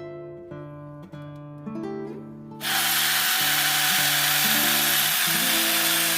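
Acoustic guitar background music. About two and a half seconds in, a loud, steady hissing noise from a workshop tool or spray cuts in suddenly and runs on over the music.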